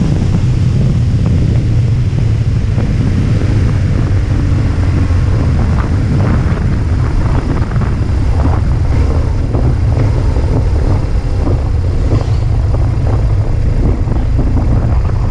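Motorcycle riding along at a steady speed, its engine running under a heavy low rumble of wind on a bike-mounted microphone.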